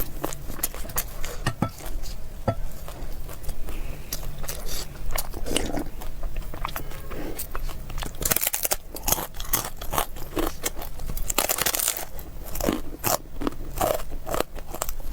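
Close-miked eating: crunchy bites and chewing of crisp food, with wet mouth clicks. Two heavier bursts of crunching come about eight and eleven seconds in.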